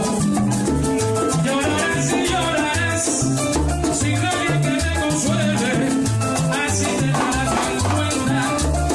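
Salsa music: a band playing a steady groove, with a bass line underneath and a fast, even shaker-like percussion pulse on top.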